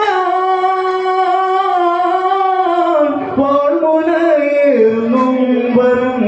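Malayalam Onamkali folk song sung by a male voice, holding one long note for about three seconds, then stepping down through shorter notes.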